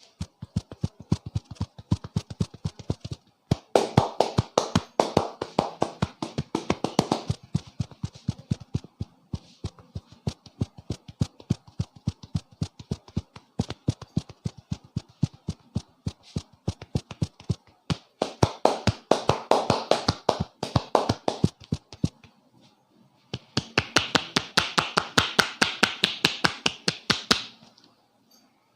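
Rapid rhythmic hand strikes of a head massage: the barber's hands tapping and slapping on the head at about four to five strikes a second, with three louder, busier runs partway through.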